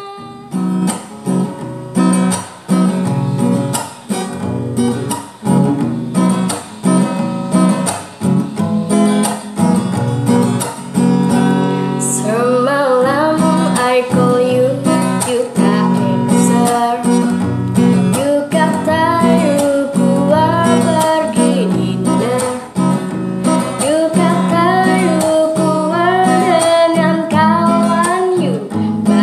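Acoustic guitar strummed alone for about twelve seconds, then a woman starts singing along to it.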